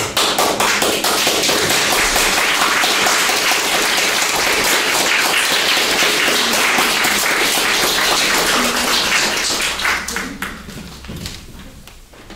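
Audience applauding: dense clapping that starts suddenly, holds for about ten seconds, then thins out and dies away.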